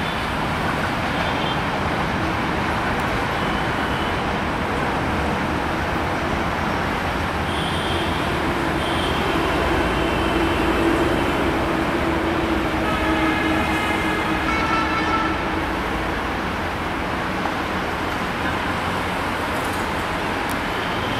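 Steady rumble of city traffic and a commuter train running away along the tracks. Short horn toots sound about eight seconds in, and a longer horn sounds from about thirteen to fifteen seconds in.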